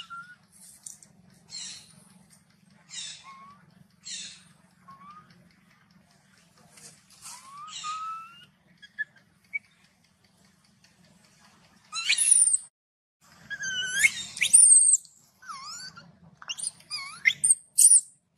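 Young macaque calling: short high squeaks and brief gliding coos at first, then from about twelve seconds in a run of loud, shrill screams that sweep up and down in pitch.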